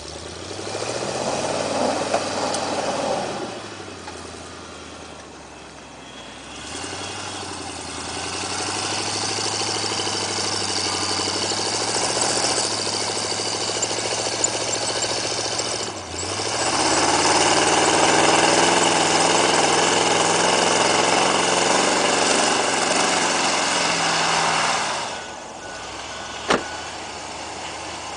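A 1977 Ford F-150 4x4 pickup's engine revving hard and pulling through deep snow in three long spells, each rising in pitch, holding, then dropping back. It settles to a low idle near the end, followed by a single sharp click.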